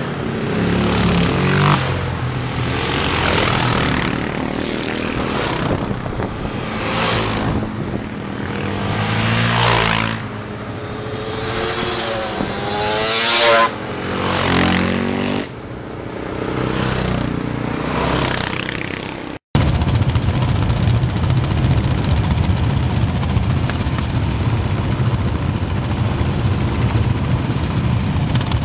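Sport quad bikes (ATVs) riding past one after another, engines revving and each one's pitch dropping as it goes by. After a sudden cut about two-thirds through, quad engines run steadily close by.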